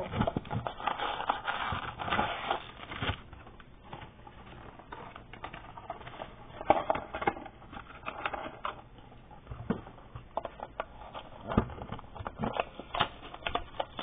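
Cardboard trading-card box and its packaging being handled: crinkling and rustling for the first few seconds, then scattered taps and clicks, with a sharp knock about halfway and another near the end.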